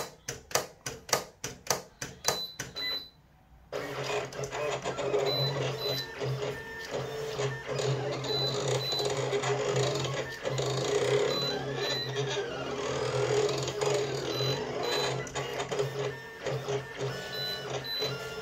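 Silhouette Cameo vinyl cutter at work cutting heat transfer vinyl: regular clicks about three a second, a brief pause, then from about four seconds in its carriage and roller motors run steadily with a low hum as the blade cuts the design.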